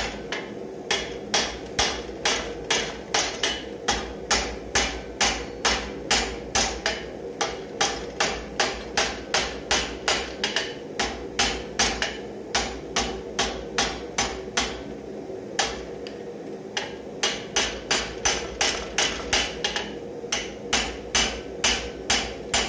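Ball-peen hammer striking down on the red-hot end of a bar clamped upright in a vise, upsetting the hot metal: a steady run of ringing blows, about two to three a second, with a short pause about fifteen seconds in.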